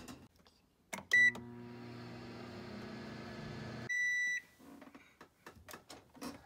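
Toshiba microwave oven: a click and a short button beep about a second in, then the oven running with a steady hum for under three seconds. The hum stops and a longer beep sounds around four seconds in. Light clicks and handling noises follow.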